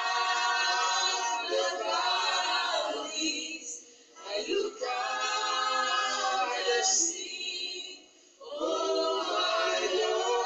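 A group of people singing together in several voices, in long held phrases with short breaks about four and eight seconds in.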